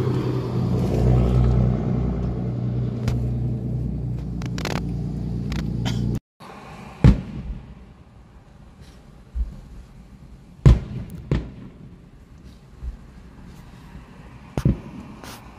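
A loud low rumble for about six seconds, then, after a sudden cut, fireworks going off outside a car: about half a dozen sharp bangs a second or two apart, heard through the car window.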